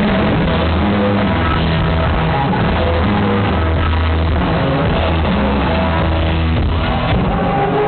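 Live rock band playing loudly through the PA, with sustained bass notes under a dense wash of guitars and keyboards, heard from within the concert crowd.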